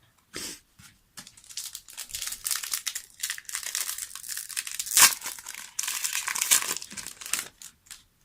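A foil Yu-Gi-Oh booster pack wrapper crinkling and being torn open by hand, with a sharp snap about halfway through.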